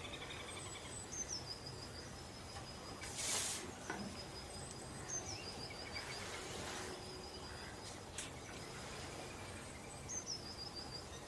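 A bird sings the same short high-pitched phrase three times, a few seconds apart: a thin high note, then a quick run of repeated notes stepping down in pitch. Faint steady outdoor background noise runs underneath, with a brief rush of noise about three seconds in.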